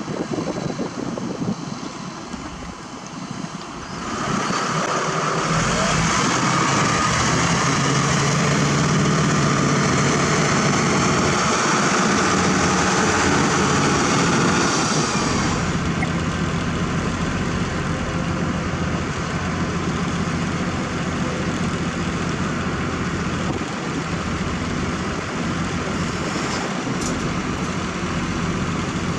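Heavy diesel engines running, with wind on the microphone at first. About four seconds in a louder, steady engine with a high whine comes in, then it eases off about halfway through to a steadier, lower engine sound.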